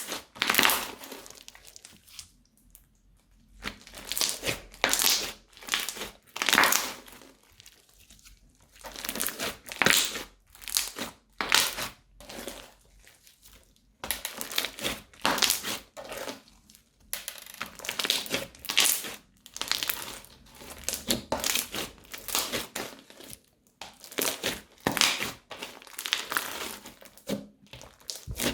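Crunchy slime being squeezed and worked, giving repeated bursts of crackling and crinkling about a second apart, with short pauses between them.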